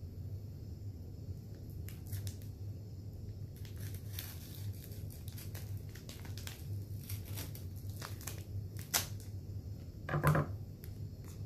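Small scissors snipping through a crinkly snack-packet wrapper, a run of short sharp crackles and clicks, over a steady low hum. A louder short sound comes about ten seconds in.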